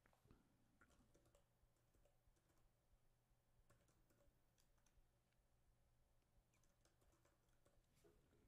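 Near silence, broken by faint, irregular keyboard typing clicks as a username and password are typed in.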